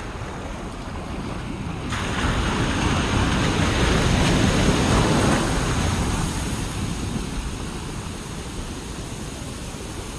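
Ocean waves on a beach: a wave swells to its loudest about four seconds in, then washes out and fades. Wind rumbles on the microphone throughout.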